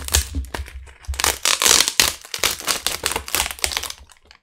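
Thin plastic backlight sheets being peeled and torn off the back of a MacBook Air keyboard: dense crinkling and crackling with many sharp clicks, easing off near the end. The layers are old and disintegrating, shredding as they come away.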